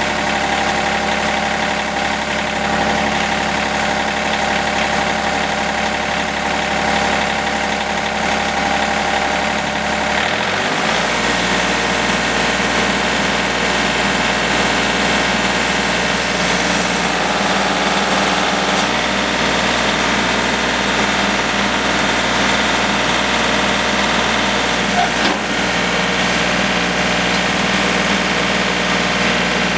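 John Deere compact utility tractor's diesel engine running steadily at idle. About ten seconds in its engine note shifts as the engine speed changes, then runs on steady, with one brief click a few seconds before the end.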